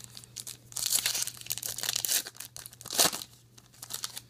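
A trading card pack's wrapper being torn open and crinkled, with crackling for a second or so and a sharp rip about three seconds in.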